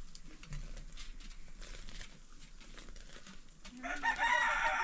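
A rooster crows once near the end, one long call that rises at its start, over faint scattered ticks and knocks.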